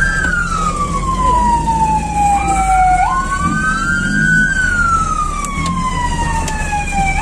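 Fire truck siren wailing in a slow cycle: the pitch falls steadily for about three seconds, then jumps back up and climbs before falling again, twice in all. A steady low rumble runs underneath.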